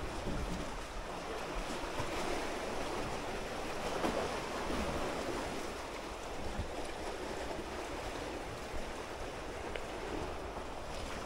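Sea waves washing steadily against the shore, with wind rumbling on the microphone.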